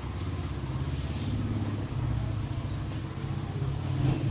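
A motor running steadily with a low rumble, a little louder near the end.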